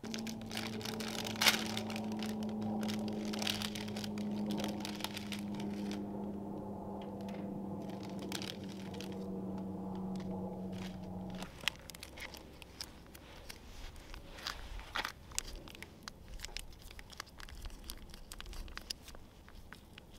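A camp stove burning with a steady low hum under scattered crackling, which stops abruptly a little past halfway. Then come light crinkling and clicks as a foil seasoning packet is torn and shaken out over a pot of noodles.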